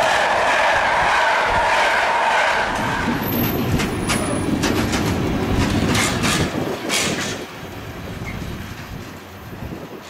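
A train horn's chord of steady tones trails off over the first two and a half seconds. The passing train then rumbles by with several sharp clacks of wheels over rail joints, and the sound drops away after about seven and a half seconds.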